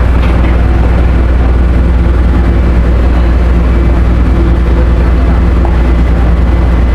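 Diesel engines of a ro-ro passenger ferry running steadily: a loud, deep, even hum.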